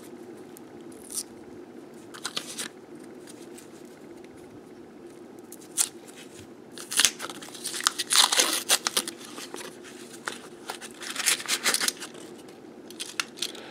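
Paper wrapper of a half-dollar coin roll being torn open and crinkled by hand, in a few short rips at first and then a busier stretch of tearing and rustling from about seven to twelve seconds in.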